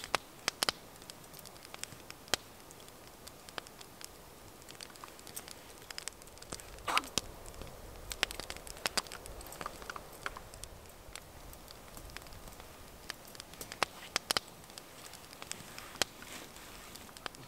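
Small kindling fire of fatwood shavings catching and crackling, with scattered sharp pops, along with light metal clinks from a folding wire grill being set up over it.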